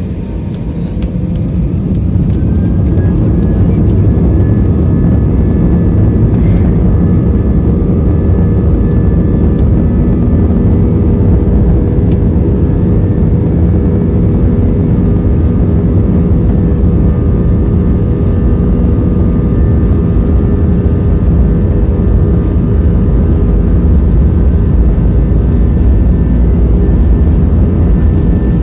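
Jet airliner engines spooling up to takeoff thrust over the first few seconds, then running steadily at takeoff power with a loud, constant rumble through the takeoff roll, heard from inside the passenger cabin.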